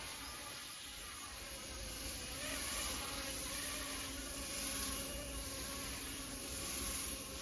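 Kootai F05 RC helicopter in flight, its motor and rotor giving a steady humming drone whose pitch wavers slightly.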